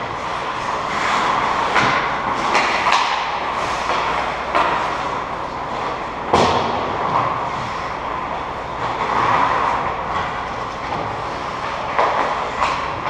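Ice hockey play: a steady rushing noise of skate blades on ice and rink ambience, broken now and then by sharp clacks of sticks and puck. The loudest clack comes about six seconds in.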